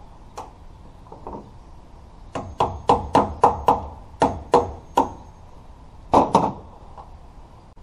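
Hammer blows at a pickup tailgate: a couple of light taps, then a quick run of about nine sharp knocks, and two more a second later.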